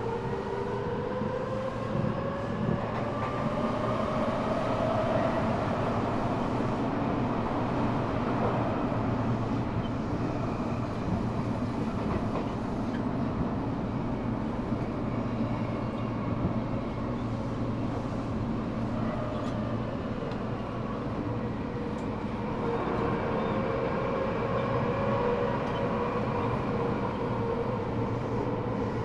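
Eidan 6000 series subway car running in a tunnel. Its high-pitched Mitsubishi three-level VVVF inverter, a unit taken from the 7000 series, whines in a rising pitch as the train accelerates, then gives way to steady running and rail noise. About 22 seconds in the inverter tones return as the train brakes for the next station.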